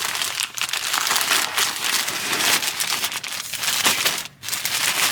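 Plastic packaging crinkling and rustling as an aftermarket car radio screen is pulled out of it by hand, with a short pause about four seconds in.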